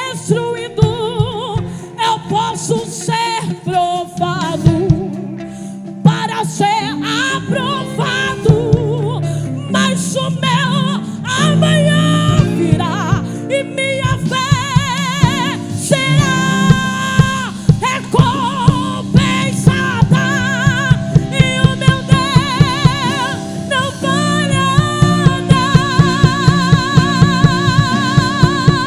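Live gospel worship music: a band plays under a held, wavering vocal melody sung with vibrato, and a steady drum beat comes in about halfway through.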